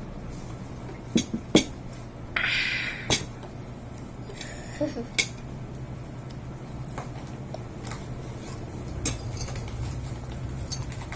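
Cutlery clinking against a plate during a meal: a few sharp clinks, with a brief rasp about two and a half seconds in. A steady low hum runs underneath.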